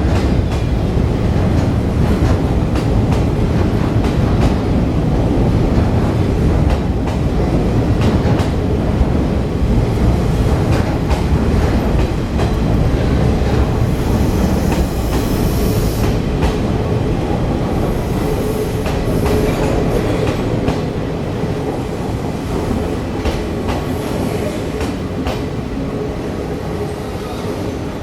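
Hokutosei sleeper express train rolling in to arrive, a steady low rumble with many clicks of the wheels over rail joints, getting slightly quieter toward the end.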